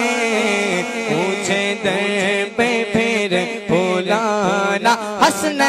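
Naat singing: a wordless vocal line sliding through ornamented, wavering notes over a steady low drone.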